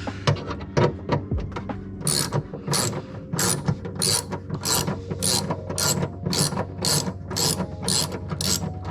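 Hand ratchet wrench being swung back and forth, clicking through about eleven even strokes roughly every 0.6 s. Before the strokes begin, about two seconds of irregular clicks and knocks.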